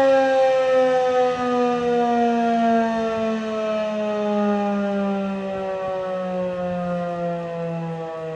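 Federal Signal 2001-SRN electromechanical siren winding down after its alert, its wail falling slowly and steadily in pitch and fading a little.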